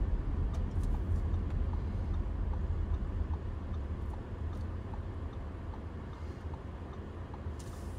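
Low engine and road rumble inside the cabin of a 2022 Audi Q5 with a 2.0-litre turbocharged four-cylinder, growing gradually quieter as the SUV slows toward stopped traffic.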